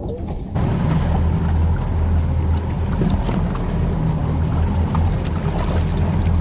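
Boat engines humming steadily under a broad rush of water and wind noise, which jumps louder about half a second in.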